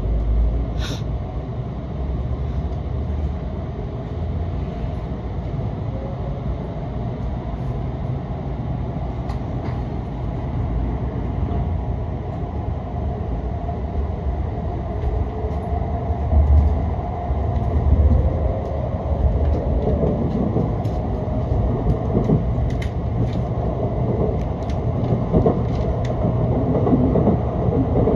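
Cabin running noise of an N700S Kamome Shinkansen train pulling out and gathering speed: a steady low rumble with a faint rising motor whine, growing louder in the second half. A sharp click about a second in and a few short clicks later on.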